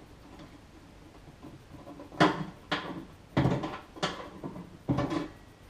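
Five sharp clicks and knocks in about three seconds, starting about two seconds in: a screwdriver working the wire connectors off a microwave oven's light-bulb holder.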